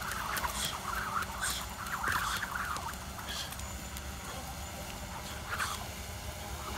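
Jump rope slapping a concrete ramp during skipping, a few sharp irregular slaps over a steady outdoor rumble.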